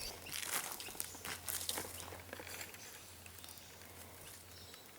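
Faint clicks and rustles of handling, mostly in the first two seconds, over a low steady hum that stops near the end.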